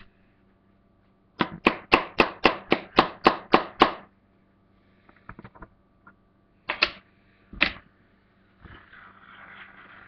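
A quick, even run of about ten sharp taps, about four a second, then two more taps a few seconds later. A faint steady hiss comes in near the end.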